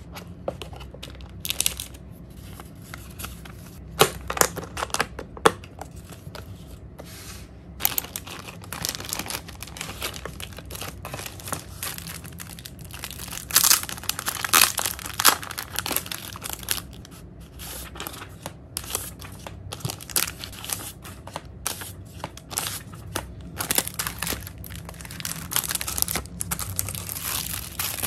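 Thin clear plastic packaging crinkling and tearing as it is peeled open from packs of paper and stickers. A few separate clicks and taps come first, and the crinkling becomes dense and continuous after a few seconds.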